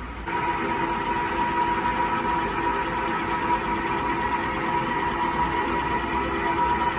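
A workshop machine running steadily with a high, even whine over a rushing noise. It starts just after the opening and cuts off at the very end.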